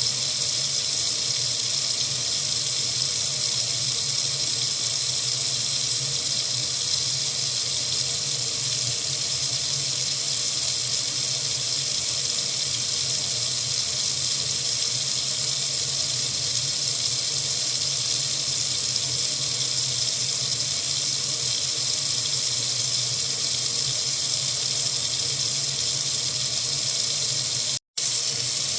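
Water tap running steadily into a sink: an even, constant hiss of flowing water. Near the end it cuts out for a split second and then carries on.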